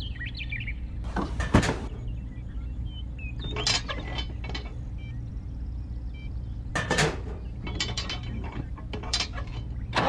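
Scattered clicks and knocks of a small model windmill house being handled and fitted onto a toy tractor's trailer, in several short groups over a steady low hum.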